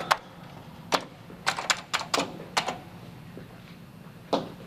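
Typing on a computer keyboard: irregular key clicks in short runs, with a pause of about a second before a last stroke near the end.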